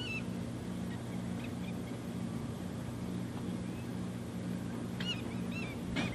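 A steady low machinery hum, with a tone in it pulsing on and off about twice a second, under a few short bird chirps. The chirps come in a quick cluster near the end, the loudest moment.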